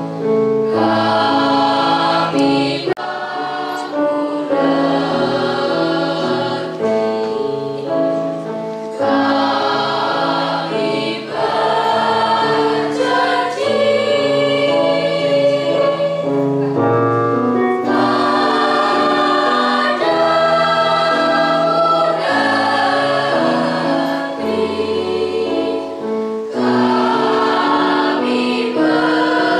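School choir of teenage students singing together in harmony, several notes at once, in long held phrases broken by short pauses for breath.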